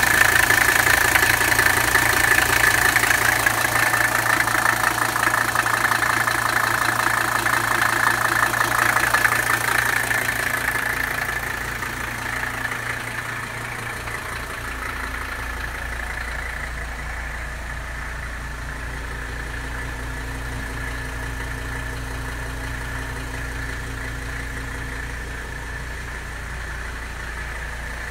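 1983 Mercedes 300SD's five-cylinder turbodiesel idling cold, with a steady diesel clatter. It is loud at the open engine bay, then quieter and deeper from the rear of the car after about twelve seconds.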